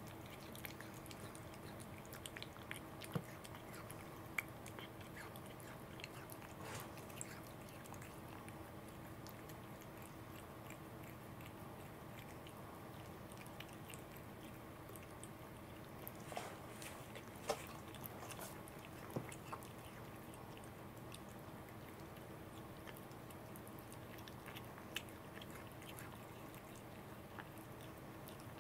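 A cat chewing and biting small pieces of fish taken from fingers, with faint, scattered wet mouth clicks over a steady low hum.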